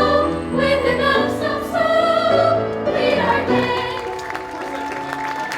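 A chorus of stage-musical voices singing over backing music; about three seconds in the song ends on one held note and audience applause starts.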